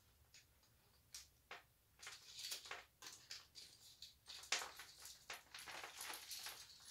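Faint rustling and a few light clicks as costume jewelry is picked up and handled, with a couple of separate clicks early and patches of rustling from about two seconds in.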